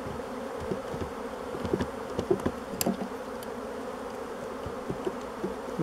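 Honey bees from an opened hive buzzing in a steady hum. Light clicks and knocks from the wooden frames being handled with a metal frame grip come through over the first three seconds or so.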